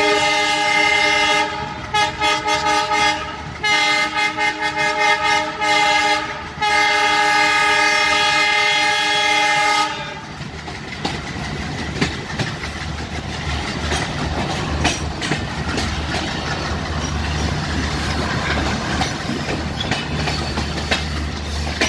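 WDM-3D diesel locomotive's horn honking. A long note is followed by two runs of rapid short toots and a final long blast, and the horn stops about ten seconds in. Afterwards the locomotive's engine rumbles steadily and the wheels clatter as the train moves.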